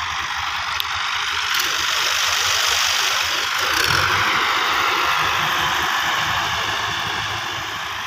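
Several farm tractors' diesel engines running together, a steady hard clatter that grows louder toward the middle and eases off a little near the end.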